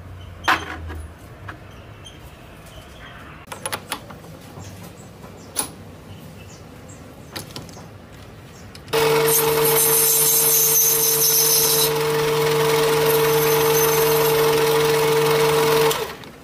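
A few light metal clicks as a quick-change tool holder is handled and fitted. About nine seconds in, a Sieg C2 mini lathe starts running with a steady whine and stops abruptly some seven seconds later.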